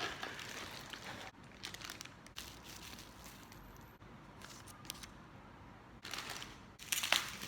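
Toy packaging being handled and opened: cardboard and plastic rustling and crinkling, with scattered small clicks, and a louder rustle near the end.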